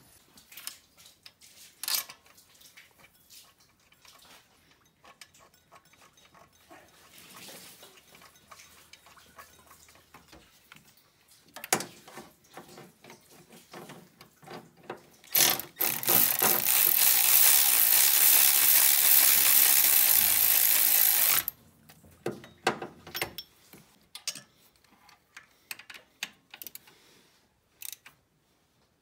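Hand ratchet clicking in short runs, with scattered metallic knocks, as the alternator mounting bolts are tightened. Midway a loud, steady rushing noise runs for about six seconds, the loudest sound here, then cuts off sharply.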